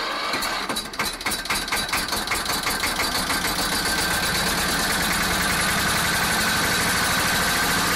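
Engine starting up at the opening of a rock track, its firing beats quickening over the first few seconds and settling into a steady run.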